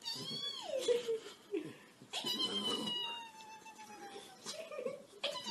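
Small flat-faced dog howling in long, drawn-out cries, each starting high and sliding down in pitch: a short one at the start, a longer one from about two seconds in that falls slowly, and another just at the end.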